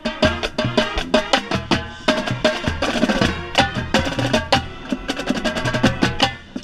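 Marching band playing, with marching tenor drums (quads) up close: rapid, loud drum strokes over sustained brass chords. The music cuts off near the end.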